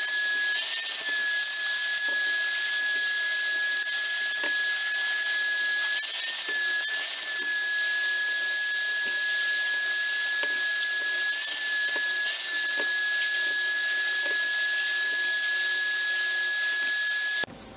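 Vacuum cleaner running with a steady high whine over a rushing hiss as its nozzle cleans sawdust off small wooden pieces. Its pitch rises briefly a few times, with light ticks now and then, and it cuts off suddenly near the end.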